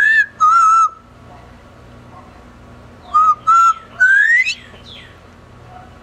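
Double yellow-headed Amazon parrot whistling: a two-note phrase at the start, a slightly higher note then a lower held one, then about three seconds in two short notes followed by a long rising whistle.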